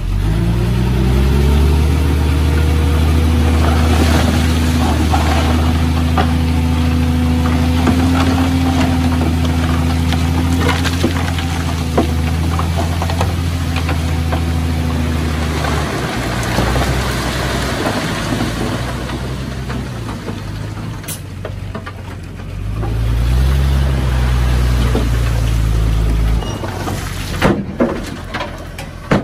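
A heavy diesel engine revs up and runs at steady high revs for about fifteen seconds, then drops back. It revs up again for a few seconds and cuts back, followed by a few sharp knocks.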